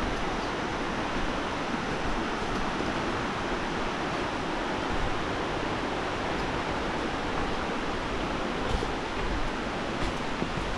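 Steady rush of flowing water, an even roar of a waterfall or mountain stream with no pitch to it.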